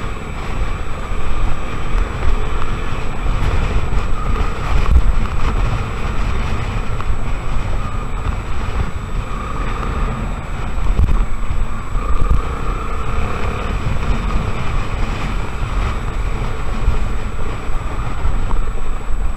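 Honda XR 250 Tornado's single-cylinder four-stroke engine running while the bike is ridden, its pitch rising and falling with the throttle, under heavy wind buffeting on the microphone.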